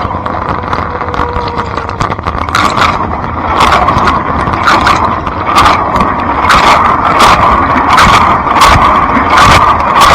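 Blanco dishwasher running its wash: a steady rush of water spray inside the tub, with a regular swish about once a second from about two seconds in as the spray arm turns and its jets sweep past.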